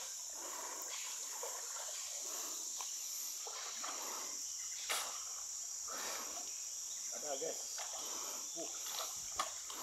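Insects chirring in a steady high-pitched drone, with irregular nearer sounds of movement in the water and two sharp knocks, about five seconds in and near the end.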